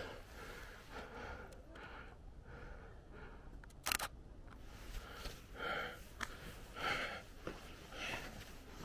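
Faint handheld-camera handling noise and footsteps on a paved path, with one sharp click about four seconds in.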